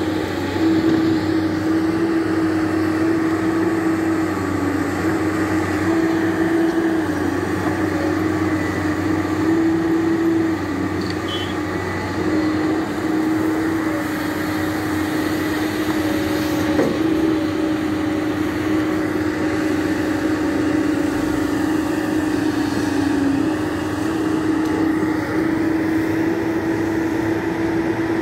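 Tracked JCB excavator's diesel engine and hydraulics running steadily under load while digging and loading soil, a continuous drone whose pitch dips slightly a few times.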